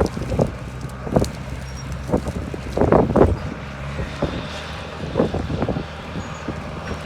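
Bulldozer's diesel engine running steadily under load as it hauls on a recovery cable, with wind buffeting the microphone and a few short louder bursts over the top.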